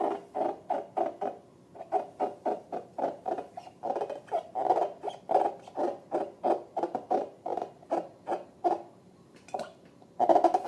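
Slime or a slime-filled balloon being squeezed and worked in the hands, giving a quick, regular run of short squishy squeaks, about three a second, with a louder burst near the end.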